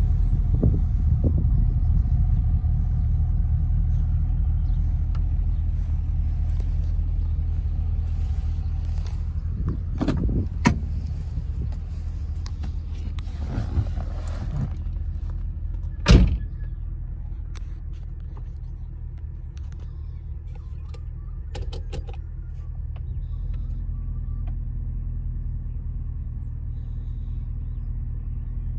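HSV E3 Grange's 6.2-litre LS3 V8 idling steadily at operating temperature, a low even rumble. There are a couple of knocks about ten seconds in and a single sharp thump about sixteen seconds in, after which the idle sounds a little quieter.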